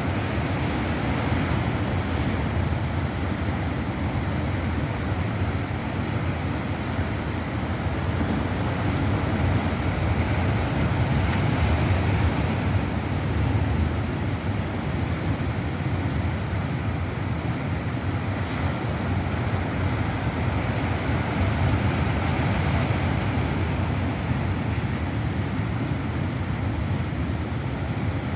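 Ocean waves breaking on the shore: a continuous rush of surf that swells about halfway through and again near the end.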